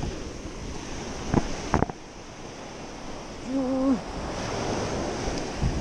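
Surf washing up the beach, with wind buffeting the microphone. Two sharp knocks come about a second and a half in, and a short hum about three and a half seconds in.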